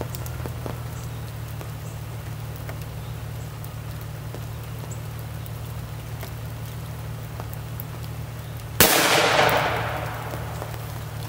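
A .357 Magnum and a .44 Magnum revolver fired together as a single loud blast about nine seconds in, its report echoing and dying away over a second and a half. A steady low hum runs underneath.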